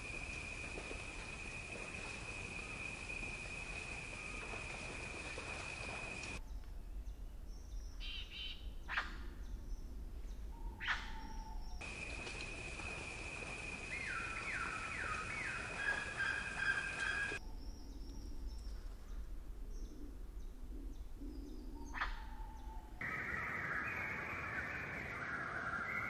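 Outdoor birdsong ambience: assorted birds chirping and calling, including a quick falling series of notes, over a soft hiss. A steady high-pitched tone runs through some stretches, and the background changes abruptly several times as the audio is spliced.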